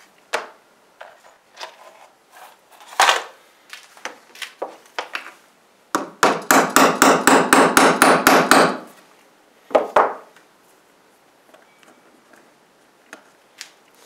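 Claw hammer driving a nail into a wooden board: a single knock about three seconds in, then a quick run of about fifteen rapid taps, and one last blow near ten seconds, with light handling clicks between.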